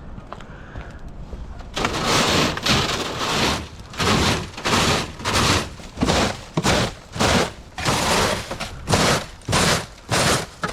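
Leaf blower blasting packed debris out of a roof gutter in short, repeated rushes, about two a second, starting about two seconds in.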